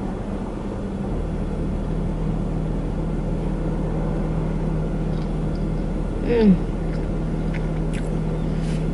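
Steady low hum of an idling car heard inside the cabin, with a short falling 'mm' from a voice about six seconds in.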